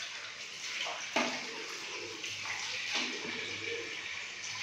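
Water running steadily, with a single sharp click about a second in.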